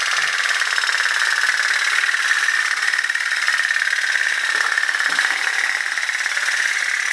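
Candle-powered pop-pop steam boat running in the water, making a rapid, steady putt-putt rattle.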